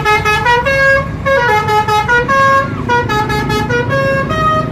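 Basuri telolet musical bus horn playing a quick melody of short held notes that step up and down in pitch, over a low rumble.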